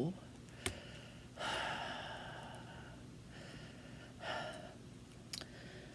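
A person sighs: a long breath out starting about one and a half seconds in and fading away, then a shorter breath near four seconds, with a couple of faint clicks.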